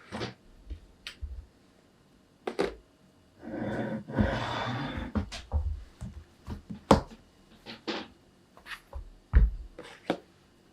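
Kitchen handling noises: a scatter of short knocks and clicks, with a rustling stretch about three and a half to five seconds in.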